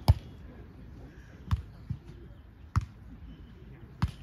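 A beach volleyball is struck by players' hands and forearms during a rally: five sharp thumps at uneven spacing over about four seconds, the first the loudest.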